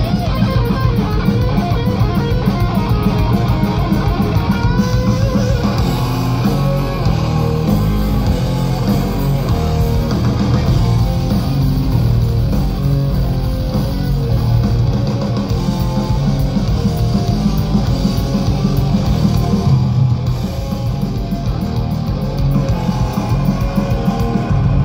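Thrash metal band playing live: distorted electric guitars, bass and fast, driving drums, loud and dense throughout.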